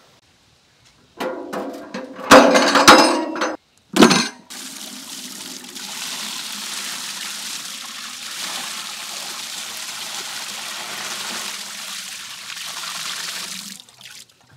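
Water poured over a skinned mutton carcass in a large metal basin: a few loud splashing, clanking bursts in the first few seconds, then a steady splashing pour that stops near the end.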